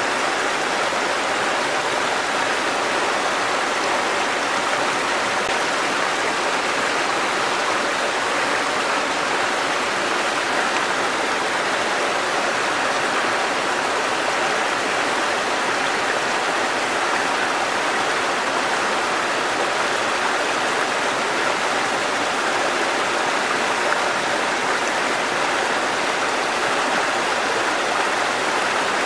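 Small waterfall: a thin curtain of water falling onto rocks and splashing into a pool, a steady, unchanging rush and splash.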